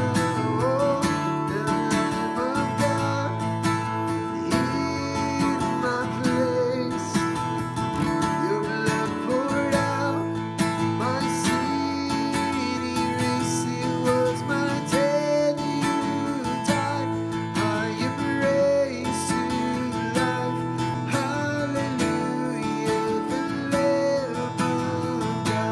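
Acoustic guitar music, with a melody line that slides between notes above the guitar.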